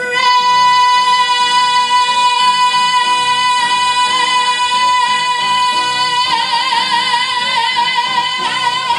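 A woman singing one long held high note into a microphone over instrumental accompaniment, steady at first and breaking into vibrato about six seconds in.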